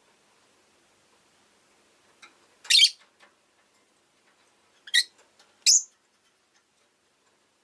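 Rosy-faced lovebird giving three loud, shrill chirps: one about two and a half seconds in, then two close together around five to six seconds in.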